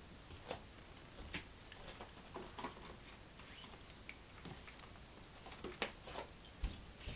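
Faint, irregular light clicks and taps as a cat steps across a wooden dining table among plastic food trays, with a couple of soft thumps near the end.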